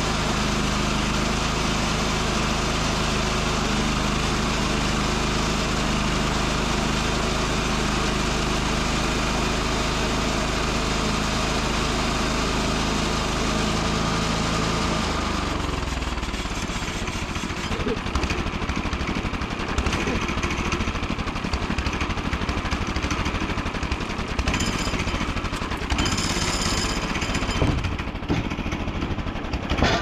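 Gasoline engine of a portable bandsaw mill running steadily at high throttle while the blade cuts through a large pine log. About halfway through, its pitch slides down as it is throttled back, leaving a rough, uneven rattling idle.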